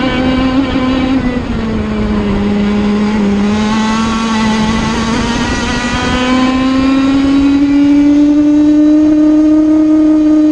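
Sirio TT85 100cc two-stroke kart engine at race speed, heard onboard. Its pitch drops about a second and a half in as the throttle eases for a corner, holds, then climbs steadily through the second half as the kart accelerates down the straight.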